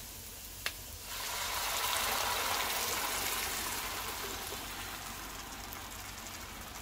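Blended green salsa poured into a pan of hot oil and onion, hitting the oil with a loud sizzle that starts about a second in, is strongest just after and slowly dies down as the sauce settles in the pan. A small click comes just before the sizzle starts.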